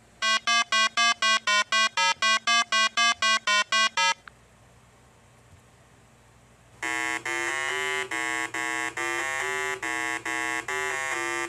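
Synthesized 8-bit buzzer tones from a game: a fast run of about sixteen short beeps over four seconds. After a pause, a slower run of longer, deeper buzzing beeps starts near the end.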